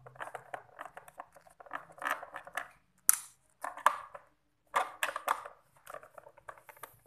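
Screwdriver unscrewing the screws in the plastic underside of a Miyako blender base: bursts of scratchy creaking and clicking as the driver tip and screw threads grind against the plastic, with a sharper click about three seconds in and another around five seconds.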